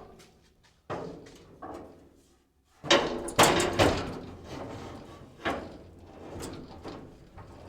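Sheet-metal truck cab clunking and scraping as it is shifted and worked loose from a bracket: a string of irregular metal knocks, loudest in a cluster near the middle.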